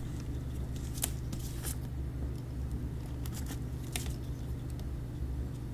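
Scattered light clicks and rustles of a plastic model-kit figure being handled and its parts repositioned, over a steady low hum.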